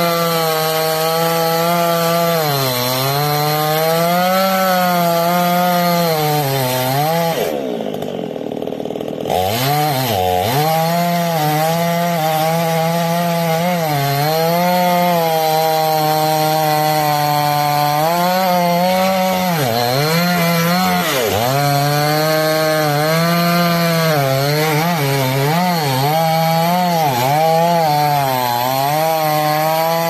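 Two-stroke chainsaw cutting into a palm trunk at high revs, its pitch sagging and recovering again and again as the chain bogs in the wood. About eight seconds in it drops briefly toward idle, then revs up and cuts on, and it slows right at the end.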